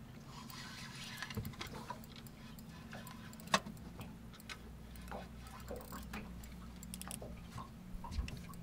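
Scattered light clicks and ticks from a spinning reel and rod being worked, with one sharper click about three and a half seconds in, over a low steady hum.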